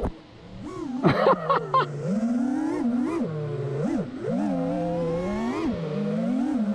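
FPV quadcopter's iFlight XING2 2306 1755KV brushless motors on 6S whining, their pitch swooping up and down with the throttle. The sound dips almost silent for a moment at the start, then the throttle is punched back in. A quick run of sharp clicks comes about a second in.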